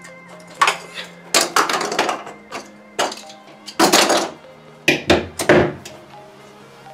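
Several short knocks and clattering handling noises in a stripped-out car cabin, in about five bursts, over background music with steady low held notes.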